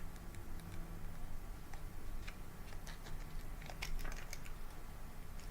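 Faint scattered clicks and crinkles of adhesive copper tape and construction paper being handled and pressed down, with a brief cluster of them about four seconds in.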